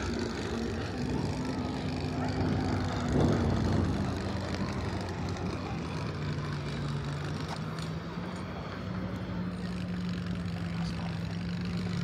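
An engine running with a steady drone, its pitch settling lower about halfway through.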